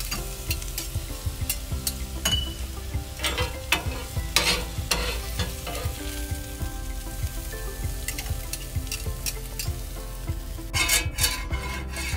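Sliced peppers and mushrooms sizzling on a griddle over a gas burner, while a metal spatula and fork scrape and tap the griddle as the vegetables are stirred. There are louder scraping flurries a few seconds in, and again near the end.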